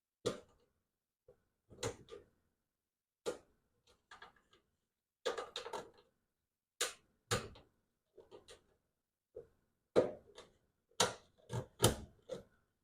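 Irregular clicks and knocks of plastic parts being handled on a portable dryer as its vent and filter are taken out, cleaned and fitted back, about a dozen sharp knocks with short pauses between.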